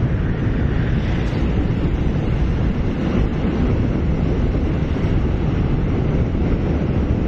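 Steady wind rush on the microphone over a motorcycle's engine and tyre noise while riding.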